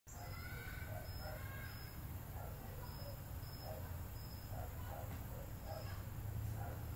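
Insects chirping in short, high pulses at uneven intervals, over a steady low rumble.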